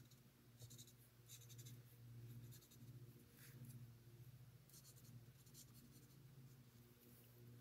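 Faint scratching of a Stampin' Blends alcohol marker's felt tip stroked over cardstock in short bursts, over a low steady hum.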